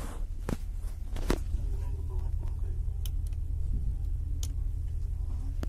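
Steady low rumble of an Indian Railways Duronto Express passenger train running, heard from inside an AC coach cabin. Five sharp clicks and knocks come over it, the loudest about a second in.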